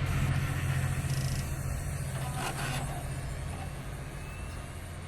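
Desktop PC just switched on, its fans and liquid-cooler radiator running with a steady low hum that slowly gets quieter. This is the vibrating noise the owner is trying to track down, which he suspects comes from the radiator.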